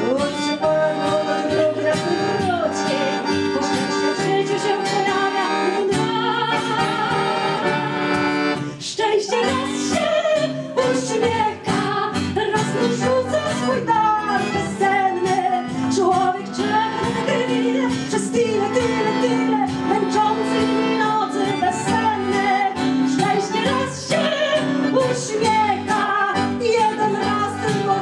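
Live accordion and acoustic guitar playing a retro Polish cabaret song, with a woman's sung voice at times.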